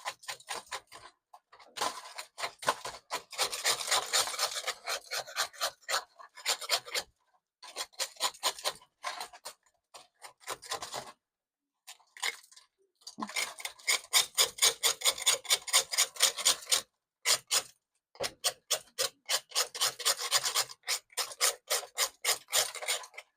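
Rapid scraping strokes, several a second, in bursts with short pauses: the charred skin being scraped off a yellow yam roasted in the coals.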